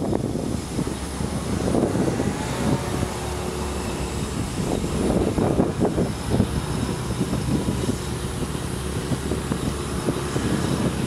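Danhai Light Rail tram running along an elevated bridge some way off: a steady low rumble with a faint steady hum, overlaid by irregular gusty swells of low noise.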